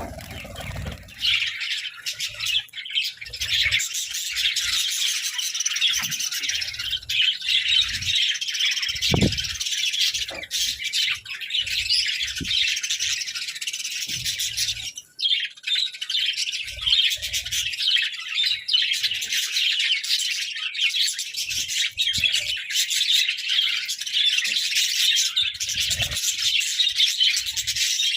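A flock of budgerigars chattering and warbling in a dense, continuous stream of rapid chirps, with a few brief low knocks now and then.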